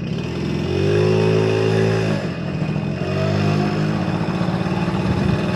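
Honda Motocompo scooter's bored-out 65cc two-stroke engine accelerating, its pitch rising. It eases off briefly about two seconds in, then pulls again.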